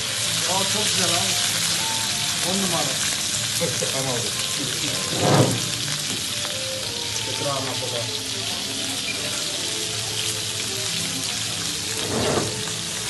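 Meat sizzling on a hot metal serving tray: a steady hiss, with two short knocks, one about five seconds in and one near the end, over faint murmuring voices.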